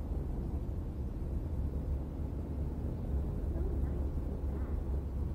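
Car driving slowly: a steady low rumble of engine and road noise inside the cabin.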